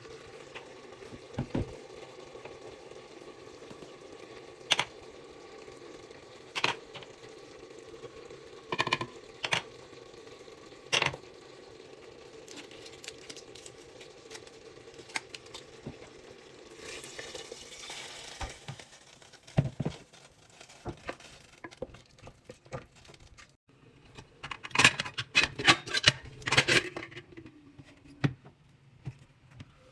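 Kitchen utensils and dishes being handled: scattered sharp knocks and clinks, a short rush of noise about halfway, and a quick run of clatter near the end, over a steady faint hum.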